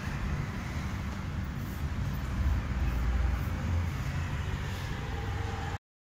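Steady low background rumble with a faint hiss, cutting off abruptly near the end.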